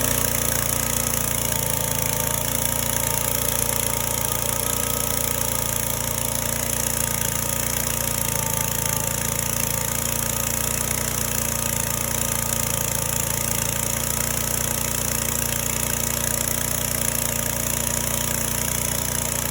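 Freshly repaired high-pressure washer running steadily on test: an even, unchanging motor drone with a constant high hiss over it.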